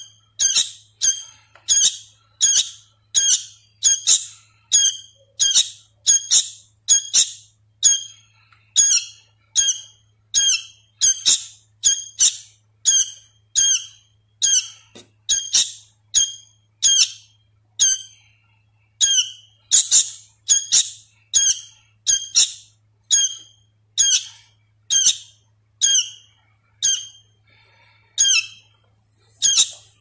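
Hand-reared sooty-headed bulbul fledgling calling: short, high, downward-sliding calls repeated about twice a second, with a brief lull near the end. It is a young bird still learning its song.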